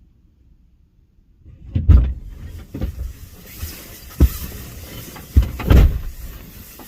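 Gusty wind buffeting the microphone in heavy low rumbles, starting about a second and a half in, with several dull thumps among the gusts.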